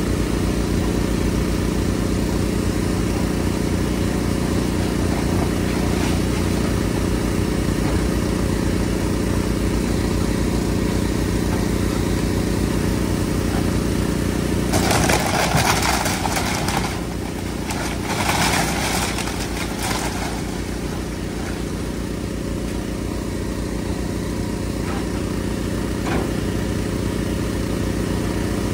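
Link-Belt excavator's diesel engine running steadily during demolition, with bursts of crunching and cracking as the bucket breaks into the house's wall about halfway through, again a few seconds later, and near the end.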